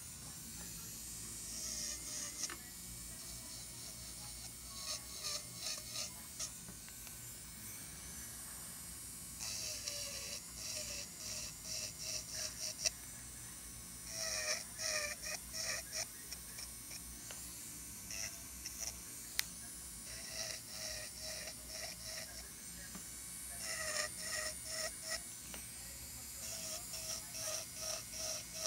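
Electric nail drill with a fine cuticle bit grinding dry callus and cuticle skin beside a fingernail, in bursts of quick short strokes, several a second, with pauses between.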